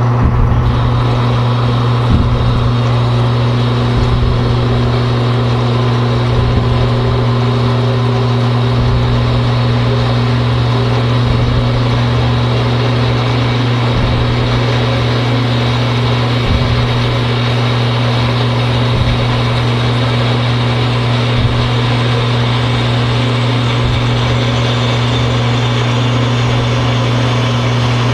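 Harbor Freight horizontal metal-cutting bandsaw, driven by a 1/3 hp electric motor, sawing through half-inch black steel gas pipe. A steady motor hum runs under the even rasp of the blade cutting the steel.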